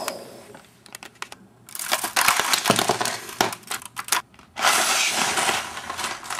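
LEGO bricks being knocked apart and clattering down, in two noisy crashes of many small plastic clicks, the second starting a little past the middle.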